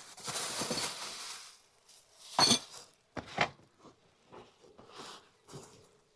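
Rustling and scraping followed by a series of knocks and clinks of hard equipment being handled, the loudest a sharp ringing clink about two and a half seconds in and another about a second later.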